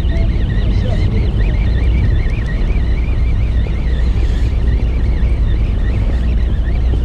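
Steady low rumble of a fishing boat's engine and wind on the microphone, with a high wavering whine that keeps bending up and down above it.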